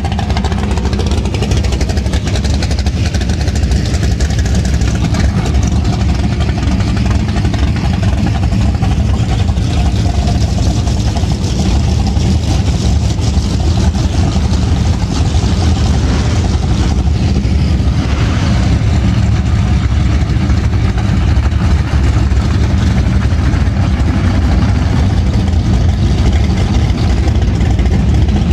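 Car engines running, a loud, steady low rumble.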